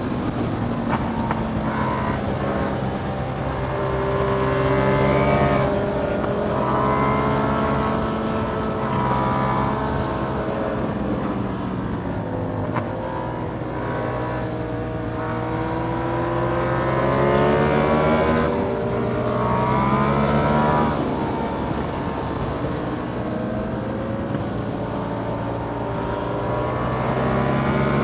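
KTM Duke 890R parallel-twin engine through a catless Austin Racing GP1R exhaust, ridden hard. The revs keep climbing and dropping back as the throttle is opened and rolled off, loudest around the fifth second and again near the end of the second third.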